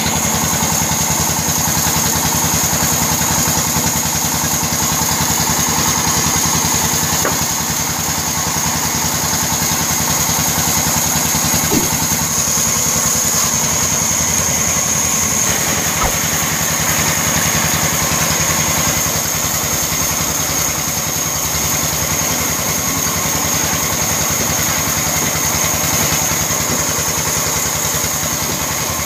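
Large band saw running steadily while a log is fed through its blade, a constant machine hum with a high whine over it.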